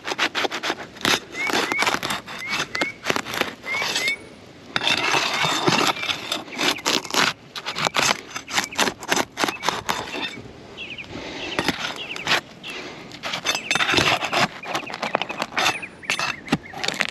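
A hand tool prying and scraping under old asphalt roof shingles to pull out roofing nails, with irregular clicks and scraping. A few short high chirps come in the first few seconds. The shingles are brittle from age and hail and wind damage.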